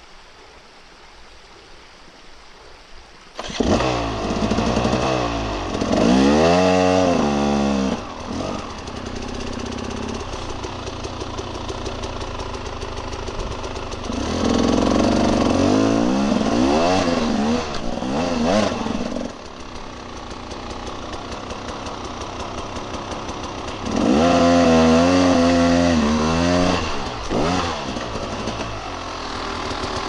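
Faint trickle of a forest stream, then an enduro dirt bike's engine cuts in suddenly about three seconds in. The engine revs up and down in repeated surges as the bike is ridden down a rocky streambed.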